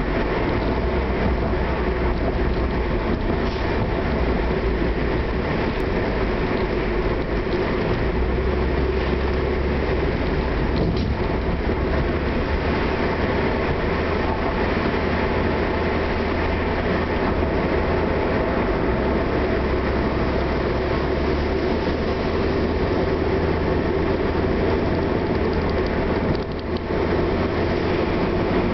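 In-cabin sound of a Mitsubishi Airtrek Turbo on the move: its turbocharged 4G63 four-cylinder engine runs steadily under tyre and road rumble. The low drone shifts a couple of times and dips briefly near the end.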